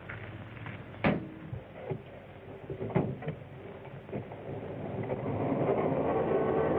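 Railroad sound effect of a train: two sharp clanks, then a steady sound of several held tones that swells and stops abruptly near the end.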